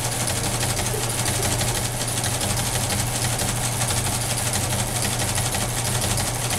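Teletype transmitter distributor reading 5-level punched paper tape while the teleprinter prints the message onto a paper strip, at about 60 words a minute. The result is a steady, rapid mechanical clatter over the steady hum of the machines' electric motors.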